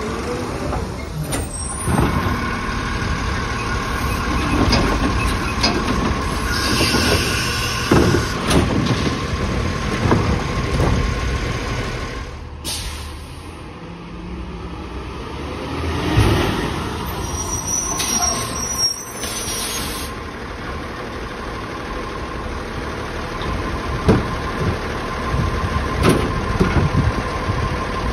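Autocar ACX split-body garbage truck running, with air-brake hisses and sharp knocks and bangs every few seconds.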